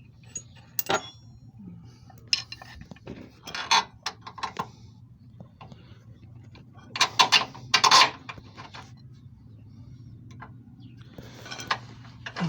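Metal clinks and knocks of a bolt and tools being worked against a Corsa's engine mount while trying to line up its bolt hole, in scattered strikes with a louder cluster of knocks past the middle, over a low steady hum.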